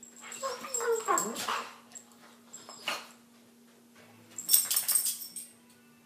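Dogs play-fighting, whining and yipping with rising and falling pitch in the first second or two. A sharp click follows about three seconds in, and a short noisy burst comes near the end.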